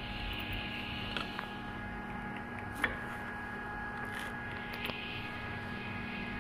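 Ultrasonic rotary wheel welding machine running: a steady mechanical hum with a whine held on a few fixed pitches, and a few faint clicks, the sharpest a little under three seconds in.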